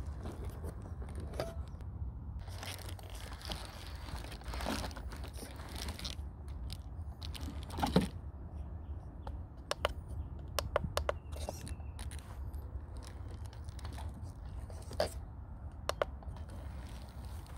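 FTX Ravine radio-controlled rock crawler clambering over rocks and wooden planks: scattered knocks and clatters from its tyres and chassis, the loudest about eight seconds in and a quick run of clicks a couple of seconds later, over a steady low rumble.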